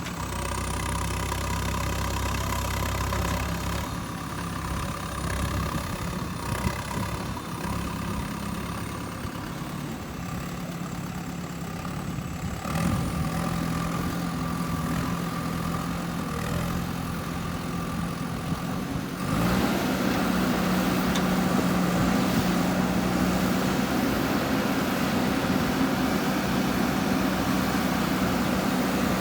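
JCB 3DX backhoe loader's diesel engine running steadily at work, its note changing abruptly a few times and stepping up louder about two-thirds of the way through.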